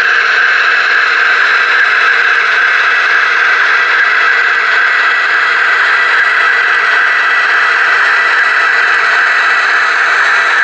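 H0-scale model of a DR class 130 diesel locomotive running with its digital sound decoder playing a diesel engine sound through a tiny onboard speaker. The sound is steady and thin, with almost no bass.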